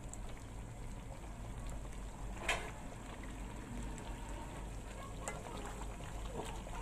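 Chicken and potato curry simmering in a pot, a soft steady bubbling over a low hum. One sharp click comes about two and a half seconds in, and a few lighter knocks near the end as a ladle goes into the pot to scoop out chicken.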